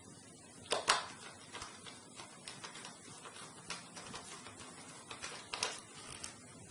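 Scattered clicks and light knocks of screws and a screwdriver working a hard drive into its metal drive bracket, with a sharper double knock about a second in and another near the end.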